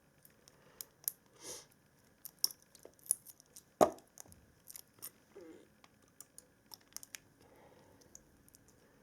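18650 cells being pried out of a laptop battery pack by hand, with the spot-welded nickel tabs and wrapping tearing loose in scattered clicks, snaps and crinkles. The loudest is a sharp snap a little under four seconds in.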